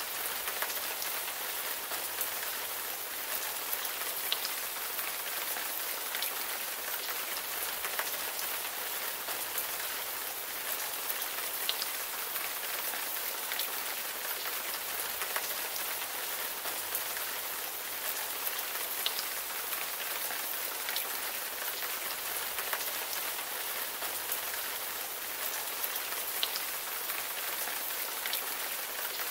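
Steady rain falling: an even hiss with scattered tiny drop ticks.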